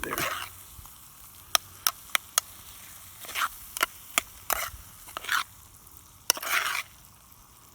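Metal spoon scraping and clinking in a metal mess tin, loosening steamed rice that has started to stick to the bottom. Sharp clicks are scattered among short scrapes, with a longer scrape near the end.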